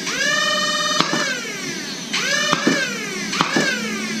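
3D-printed Twig Snake micro-flywheel foam-dart blaster with Honey Badger motors, revving up with a quickly rising whine, firing darts with sharp clicks, and spinning down with a slowly falling whine, three times over.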